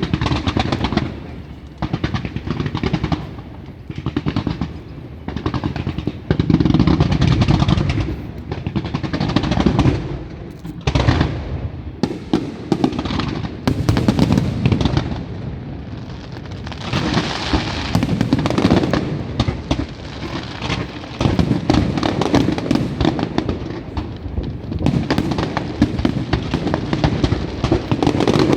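Aerial fireworks going off in a dense, continuous barrage: rapid booms and sharp bangs with crackling bursts, one after another.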